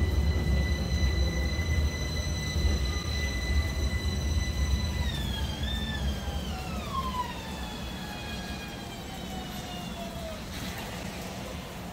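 Xijiao line low-floor tram slowing into a station. A steady high electric whine from its traction drive holds, then falls in pitch from about five seconds in as it brakes. Underneath, a low rumble of the wheels fades as the tram slows.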